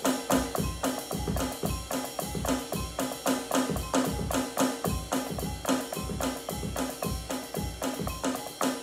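Drum kit played in a fast, steady groove: a quick even run of kick and snare strokes with cymbals over them.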